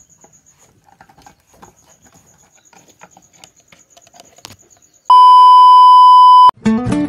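Faint scuffling and soft knocks of kittens tussling, then a loud steady test-tone beep of a TV colour-bars signal lasting about a second and a half, which cuts off suddenly. Guitar music starts right after it.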